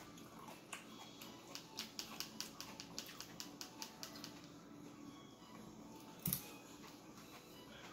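Light clicking and scraping of a fork in a clear plastic cup of coleslaw, a quick run of small clicks, then one louder click or mouth sound about six seconds in as the forkful goes into the mouth.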